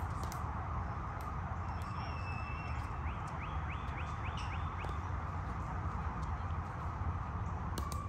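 Pickleball rally: paddles striking the plastic ball in sharp pops spaced irregularly, about a second apart, with a quick run of sneaker squeaks on the court about three seconds in, over a steady background hum.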